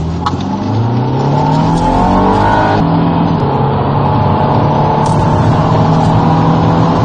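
Car engine accelerating hard. Its pitch climbs steadily, dips once about three seconds in, then climbs again.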